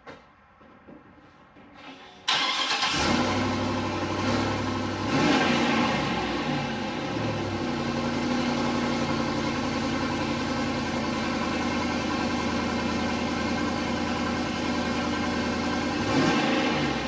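A 2012 GMC pickup's 6.0L Vortec V8 gasoline engine starts about two seconds in, catching almost at once, gets a short rev a few seconds later, then runs at a steady idle, with another brief rev near the end. This is its first run after the plugged catalytic converter was cleaned out and the exhaust reassembled.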